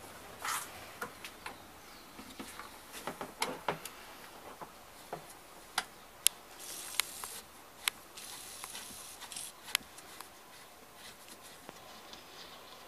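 Hands fitting a coaxial cable's connector onto the input jack of a satellite receiver: faint rubbing with scattered small clicks of metal on metal.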